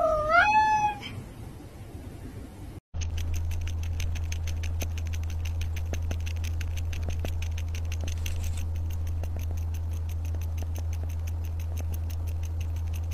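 A large white-and-black cat gives one short meow that bends up and then down in pitch. Then a calico cat with a rubber pacifier in its mouth makes many rapid, faint clicks over a steady low hum.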